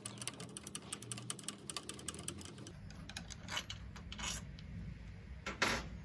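A screwdriver turning out the retaining screw of a door's lock cylinder, with rapid light clicking that thins out after about three seconds. Three short, louder scuffs of handling follow near the end.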